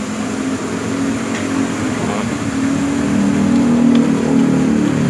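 A motor vehicle engine running, a steady low hum that grows louder over the first few seconds and then holds.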